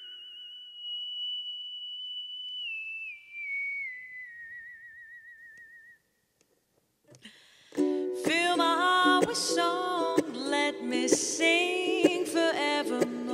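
Background music: a single held whistle-like note that wavers, steps down in pitch and fades out. After a second or so of silence, a new piece of music starts about eight seconds in.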